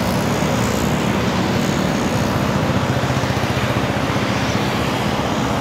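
Steady road traffic noise mixed with wind rushing over the microphone of a moving cyclist.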